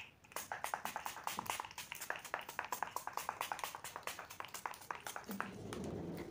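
Fingertips patting the skin of the face in quick, light taps, about nine a second, working in a facial toner; the patting stops about five seconds in and gives way to a soft low rustle.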